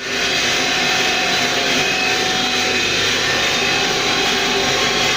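Cam-driven automatic bead machine running steadily: a continuous mechanical whir with a few steady whining tones over it.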